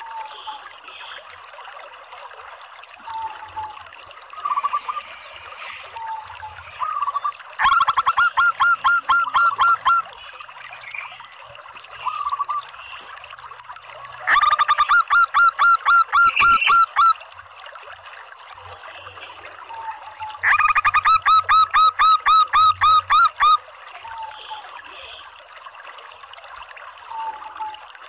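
Female zebra dove (perkutut) calling: three runs of rapid repeated notes, each lasting two to three seconds, with short single notes in between over a steady hiss.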